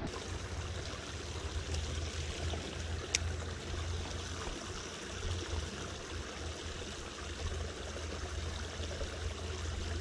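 Creek water flowing and trickling in a steady rush, with one sharp click about three seconds in.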